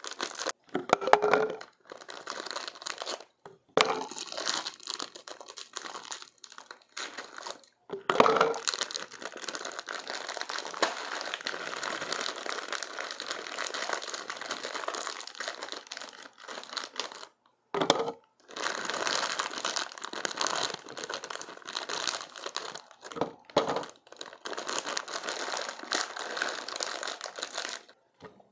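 Clear plastic bag of ice crinkling and rustling as it is handled and opened, with a few sharper cracks and knocks along the way.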